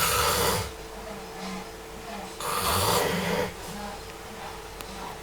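A person snoring in sleep: two loud snores about two and a half seconds apart, with quieter breathing between, over a faint steady hum.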